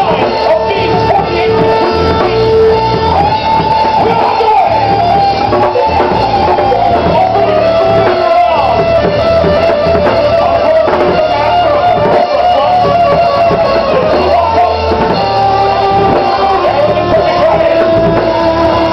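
Loud music with guitar, a held melody line changing notes over a steady beat.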